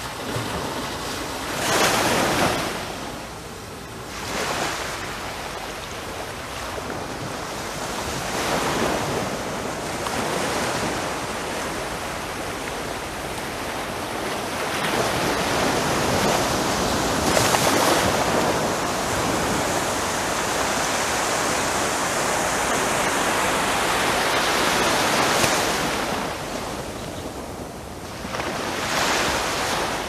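Small sea waves lapping on a sandy beach, breaking and washing up the shore every few seconds, with a longer, louder wash through the middle. As each wave draws back it rolls tiny stones with it.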